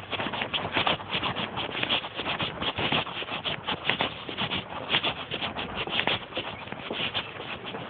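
Pocket noise: clothing rubbing and scraping against the microphone of a recorder carried in a trouser pocket while walking, a steady run of irregular crackles and scuffs.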